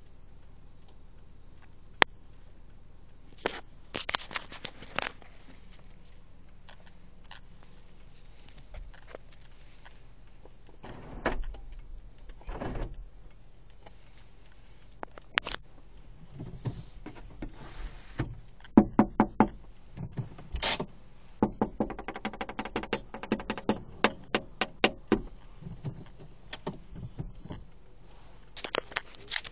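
Scattered knocks, taps and scrapes on a car's body and rear glass, heard from inside the cabin, from a baboon clambering on the back of the vehicle. The taps come thicker and quicker in the second half.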